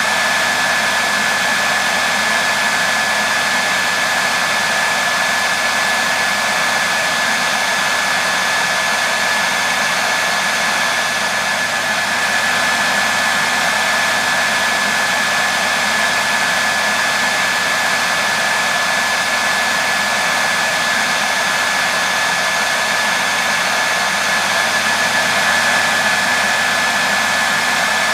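Hair dryer running steadily: a constant rushing of air with a thin steady whine on top, played as white noise to soothe a baby to sleep.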